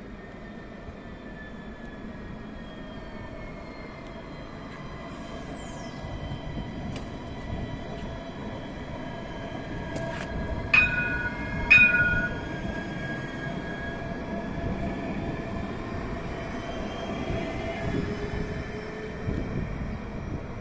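Alstom Citadis trams passing on the rails: their electric drives whine in slowly shifting pitch over the rolling wheel noise. About halfway through, two short loud ringing signals sound a second apart, the tram's warning gong.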